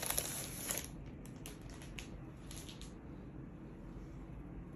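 Wrapping crinkling as an A4 poster set is taken out of its packaging, for about the first second, then a few faint handling ticks.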